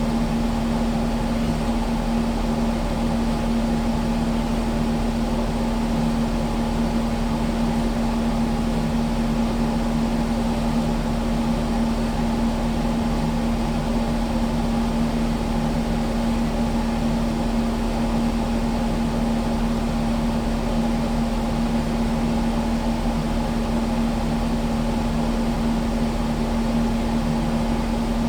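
Kubota skid steer's diesel engine running at a steady, unchanging speed, with a constant drone.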